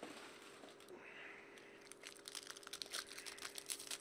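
Foil wrapper of a Panini Limited hockey card pack crinkling as it is handled and torn open, faint at first, the crackle growing denser over the last two seconds.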